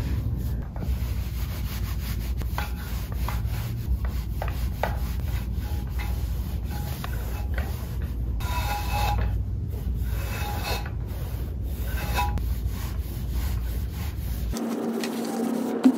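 Electric clothes iron sliding back and forth over cotton trousers on a cloth-covered table: a steady rubbing and scraping. About a second and a half before the end it cuts abruptly to a different sound with a steady hum.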